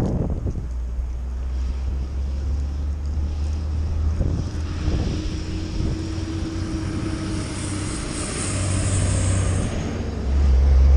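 Wind buffeting a body-worn microphone as a steady low rumble that gets louder near the end, with a faint steady hum for a few seconds in the middle.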